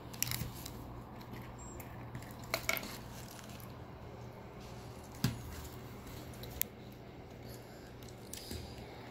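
A plastic spoon stirring pink slime in a small bowl, with a few sharp clicks and taps against the bowl over a steady low hum.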